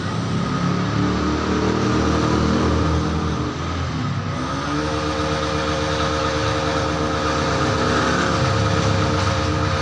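Road vehicle engine running under way, its pitch climbing, dropping sharply about four seconds in as with a gear change, then holding steady, over continuous road noise.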